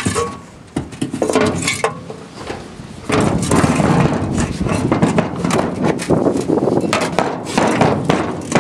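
A Deutz DL1300 loader's detached exhaust silencer being shaken: a few metallic knocks, then from about three seconds in a continuous rattling of loose debris inside. The rattle is taken to be the broken-off piece of exhaust valve, ground to grit.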